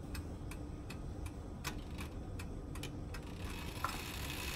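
Clock ticking, evenly at about three ticks a second, stopping about three seconds in: a sound effect marking the wait.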